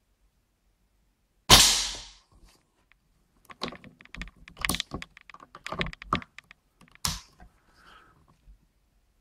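A single shot from a Crosman AirMagnum 850 CO2 air rifle: one sharp crack about a second and a half in, dying away over half a second. Then a run of small clicks and knocks from the rifle being handled, with one sharper click near the end.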